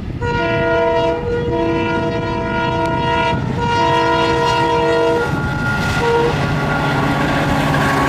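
A WDP-4D diesel locomotive sounds its multi-tone air horn in three long blasts and then a short one. After that the diesel engine's rumble and the rattle of wheels on rail grow as the train draws nearer.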